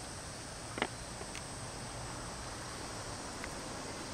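Steady high insect drone over a low, even background hiss, with one sharp click about a second in.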